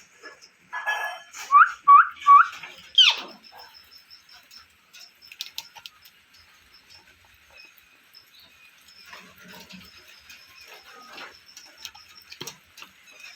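Pet parrot calling: a quick run of three short, loud chirps about a second and a half in, then a sharp squawk that slides steeply downward about three seconds in. After that, quieter scattered chatter and soft clicks.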